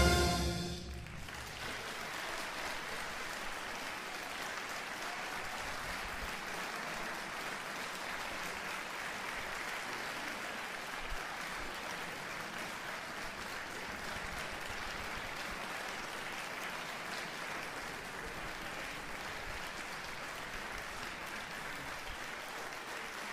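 The concert band's final held chord dies away in the first second, and an audience then applauds steadily.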